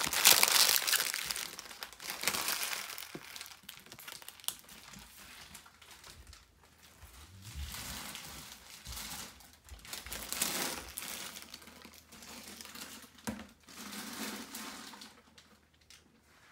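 Empty trading-card pack wrappers crinkling as they are crumpled up and cleared away, loudest at the start, then in shorter bursts with quiet gaps.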